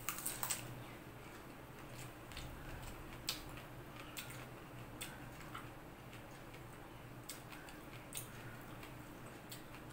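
Someone eating by hand: a few sharp crunches as a raw onion is bitten, then scattered small clicks of chewing and of fingers in a steel bowl, over a faint low steady hum.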